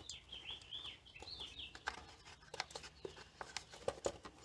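A bird chirping a short warbling phrase over the first second and a half or so, with scattered light clicks and taps through the rest.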